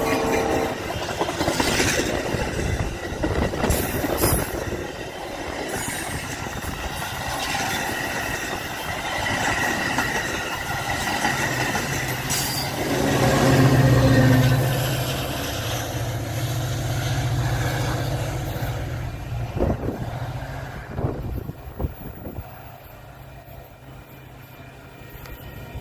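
Metra commuter train of bilevel gallery cars passing close at speed. A horn note cuts off in the first second, then steel wheels clatter over rail joints. Near the middle the diesel locomotive at the rear passes with a loud low engine drone, the loudest moment, before the whole train fades into the distance.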